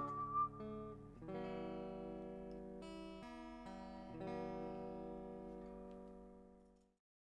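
Closing bars of a song: acoustic guitar strums a few chords that ring out and fade away to silence near the end, just after a whistled melody stops.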